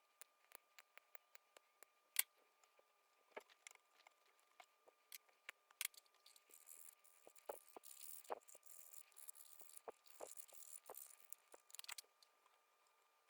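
Faint small clicks and taps of handling tiny parts, then from about six and a half seconds in, a few seconds of light scraping: the pins of a replacement dual diode pack being shaved down because they are slightly too big for the circuit board's holes.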